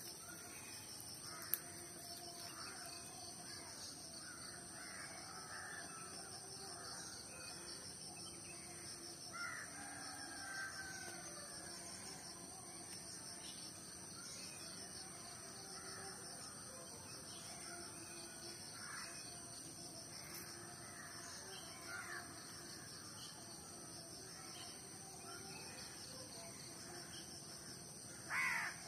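Faint crows cawing now and then in the background over a steady high hiss, the loudest caw near the end. A single sharp click comes about a second and a half in.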